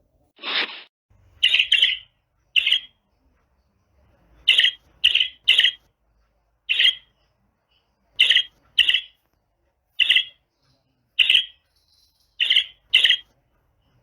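Chirping sound effect: short, high chirps, some single and some in quick pairs or threes, about fourteen in all, after a brief whoosh near the start.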